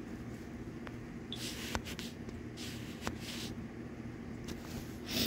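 Faint steady hum with a few soft clicks and three or so short breathy hisses, about a second apart.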